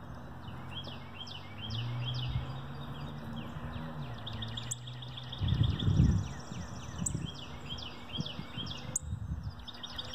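Songbirds calling and singing: bouts of rapid, evenly repeated high chirps mixed with quick down-slurred whistled notes. A low steady hum runs underneath in the first half, and a burst of low rumbling about five and a half to six and a half seconds in is the loudest sound.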